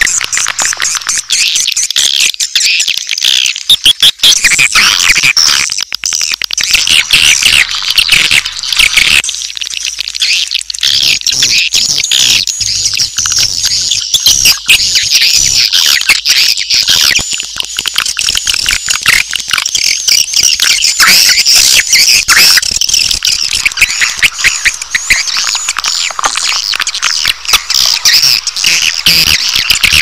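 Swiftlet lure sound, the 'suara inap' roosting call in its baby-swiftlet version: a loud, unbroken chorus of high chirps and twittering with rapid clicks mixed in. It is the kind of call played in swiftlet houses to draw swiftlets in to roost.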